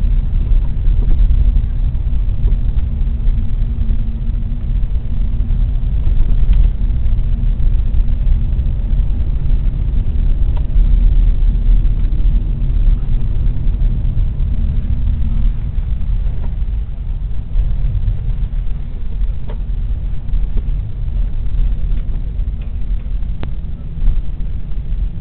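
Hyundai Elantra J4 on the move, with a steady low road and suspension rumble and a few faint knocks, which the owner puts down to the left front strut.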